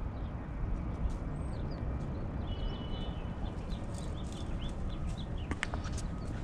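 Birds chirping in short, scattered high calls over a steady low rumble of outdoor background noise, with a few sharp clicks near the end.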